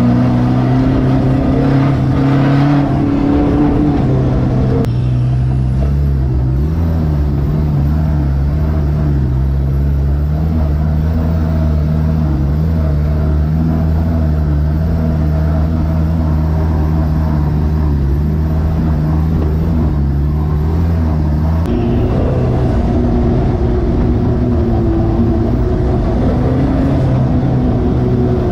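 Off-road 4x4 engine running and revving, the pitch rising over the first few seconds, then a steady, deeper engine note. The sound changes abruptly about five seconds in and again about twenty-two seconds in.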